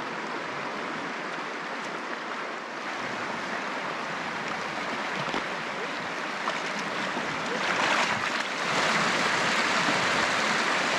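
Fast river water rushing over rapids, a steady hiss-and-roar of running water that gets louder about eight seconds in.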